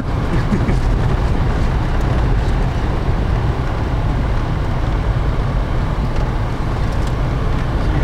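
Steady low rumble of a vehicle driving slowly over an unpaved dirt road, heard from inside the cabin: engine and tyre noise.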